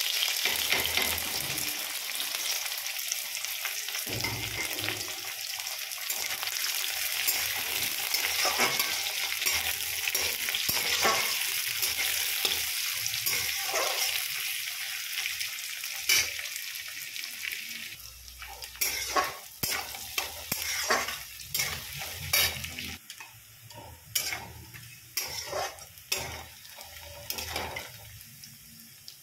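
Sliced onions and green chillies sizzling in hot oil in a metal kadai, loudest at first and easing off after about fifteen seconds. A metal spatula then stirs them, scraping and tapping against the pan many times over the quieter sizzle.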